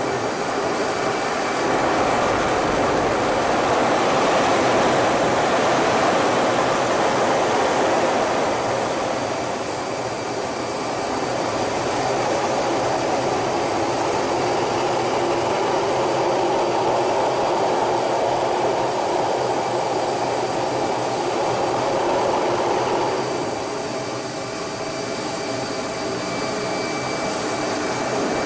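Cockpit noise of an F/A-18 Hornet in flight: a steady rush of air and the twin jet engines' drone, swelling and easing in slow waves as the jet manoeuvres, with a faint high steady tone under it.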